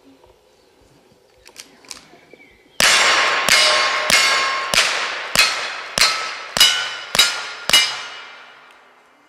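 A quick string of about nine gunshots, roughly one every two-thirds of a second, fired at steel targets. Each shot is followed by a metallic ringing that fades into the next.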